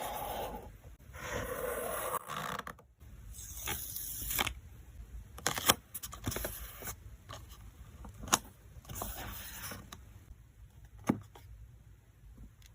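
Hands packing photocards in plastic sleeves and packaging: bursts of plastic rustling and handling, with a few sharp clicks or taps spread through the second half.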